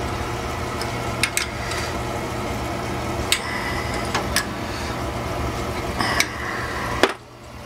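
Oil-fired heating system running: a steady mechanical hum from the burner and circulator pump, with a few sharp clicks. The hum cuts off suddenly near the end.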